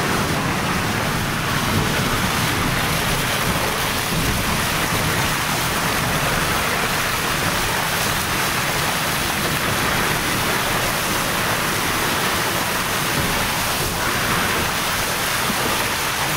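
Steady rushing noise of strong wind and tyres hissing on wet pavement, heard from inside a moving car.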